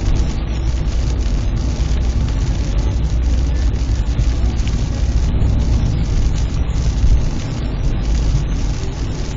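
A car running in the rain: a steady low rumble with an even hiss of rain over it.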